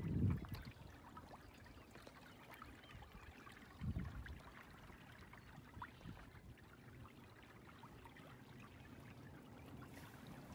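Faint trickling and lapping of water along the hull of a canoe under sail, with two brief low rumbles, one at the start and one about four seconds in.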